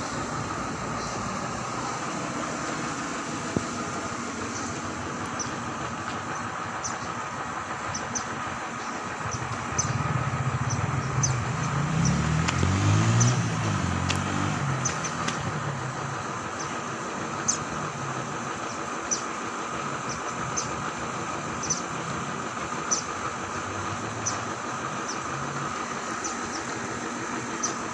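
A motor vehicle passes, its engine note rising and then falling, loudest about halfway through, over a steady background hum. Short high chirps repeat every second or so.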